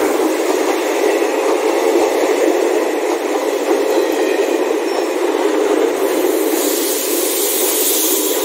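ICF passenger train coaches running past at close range: a steady, loud rush and rattle of wheels on the rails.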